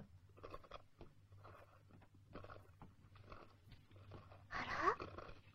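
Faint, scattered knocks and clatter of someone at work in a nearby room, over a low steady hum, with a short, louder sound of sliding pitch about four and a half seconds in.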